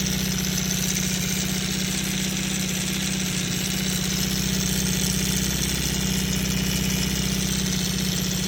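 Honda CB550's air-cooled inline-four engine idling steadily with a rattle, a fault whose cause the owner does not know.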